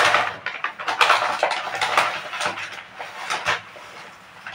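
Stainless-steel cup and mixing bowl clattering and scraping together as gram flour is measured in: a run of scrapes and knocks that dies away about three and a half seconds in.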